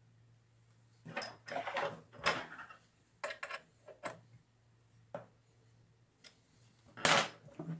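A metal mounting plate and its nuts being handled and fitted over threaded studs on a mill table: irregular metallic clinks and knocks, the loudest near the end, over a faint steady low hum.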